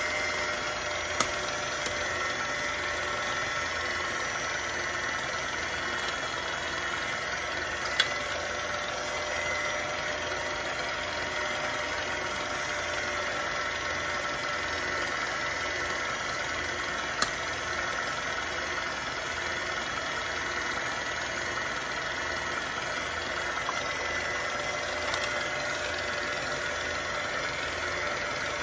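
Electric mixer motor running steadily, beating butter, sugar and eggs into pound cake batter, with a few sharp clicks.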